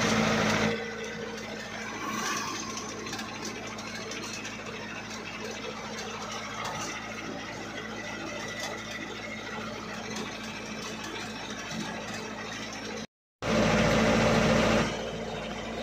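Diesel engine of a 1993 Isuzu Bison light truck running steadily under way, heard from inside the cab as a steady drone with some rattle. It drops out briefly near the end, then comes back louder for a moment before settling again.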